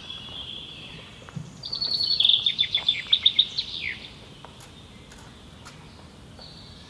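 A small songbird singing one loud song of quick repeated high notes, about two seconds long, starting about a second and a half in and ending on a falling note. A fainter steady high trill runs underneath.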